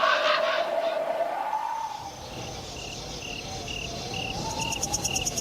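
Crickets chirping in a night ambience, a steady chirp about twice a second, joined near the end by a second, faster insect trill, over a faint wavering tone.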